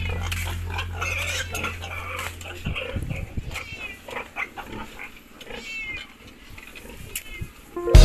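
Newborn piglets giving short, high squeals, several in a row, with rustling and small knocks in the straw. A background music track fades out in the first couple of seconds.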